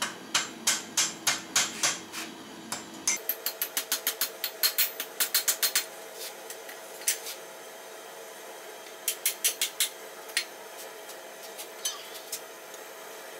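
Hand hammer striking a red-hot forged steel chest handle on an anvil, in runs of sharp blows: about three a second at first, then a faster run of about five a second, a few single blows, and another short quick run later.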